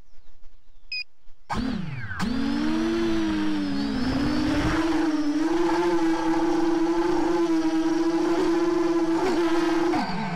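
Brushless motors and propellers of a ZMR 250 racing quadcopter (Sunnysky 2207 2100 kV) heard from its onboard camera. They spin up sharply about a second and a half in, then run with a steady high whine that wavers slightly, and cut off near the end.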